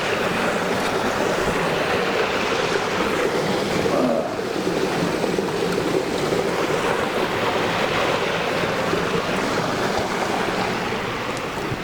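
Steady rush of flowing water at a water mill, with faint steady tones underneath.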